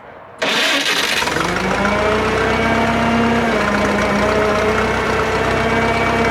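Drott 85RM2 crane's engine running, coming in suddenly about half a second in; its pitch rises over the next second or two, then holds steady.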